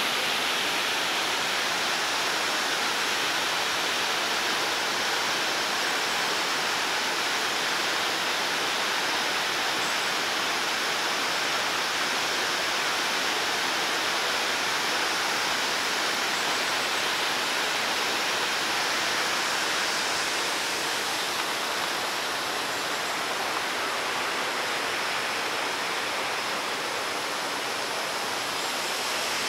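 Fountain water jets and cascades splashing: a steady rush of falling water that eases slightly about two-thirds of the way through.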